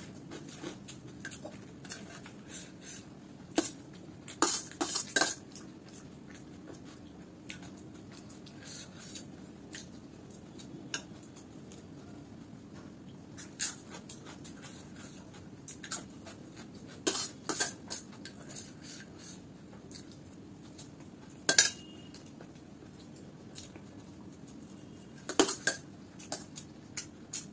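Metal spoon clinking and scraping against a stainless steel plate as poha is scooped, in scattered clusters of sharp clinks a few seconds apart, the loudest about three-quarters of the way through, with soft chewing between.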